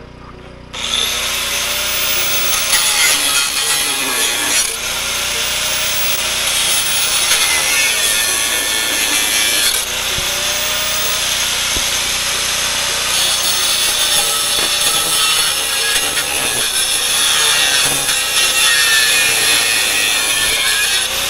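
Handheld angle grinder cutting into the metal body of an old Greyhound bus. It starts about a second in and runs on steadily, its whine dipping and recovering several times as the disc is pressed into the cut.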